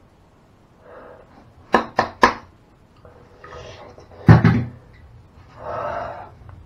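A man breathing heavily in a small tiled room, with three sharp clicks close together about two seconds in and a louder sudden sound about four seconds in.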